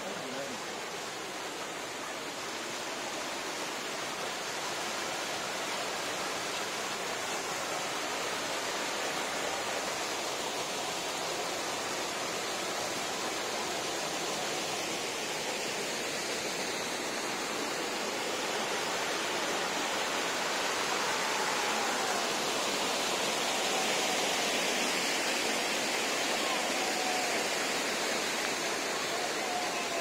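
Steady rush of a rocky mountain stream and small waterfall cascading over granite slabs into a pool, slowly growing louder.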